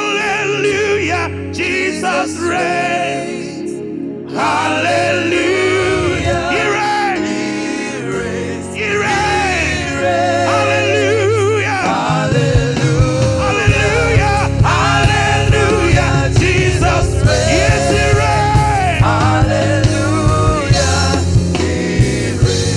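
Gospel worship music: a singer's voice wavering with vibrato over a band. About halfway through, a heavy bass and a steady drum beat come in.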